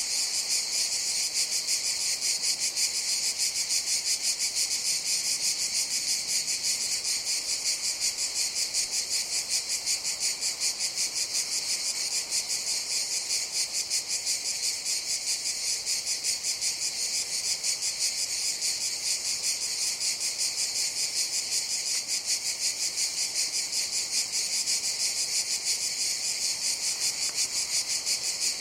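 Cicadas buzzing in a steady chorus: a continuous high-pitched drone with a fast, even pulse.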